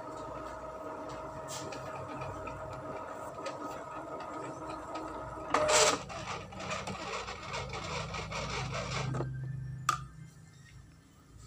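Epson L310 inkjet printer running its head-cleaning cycle: steady mechanical running with a short, louder clatter about six seconds in. The mechanism stops about nine seconds in, followed by a single click.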